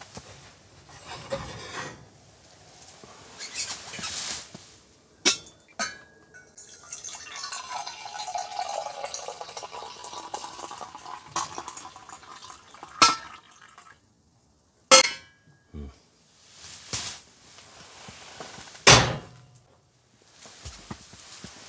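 Coffee being poured from a pot into a cup for several seconds, the pouring sound sliding in pitch, with sharp clinks and knocks of the pot and cup before and after.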